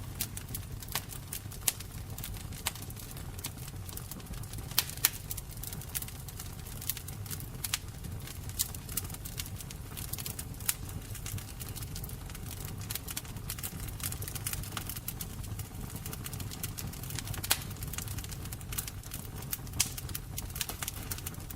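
Fire crackling: irregular sharp pops and snaps over a low, steady rumble of burning.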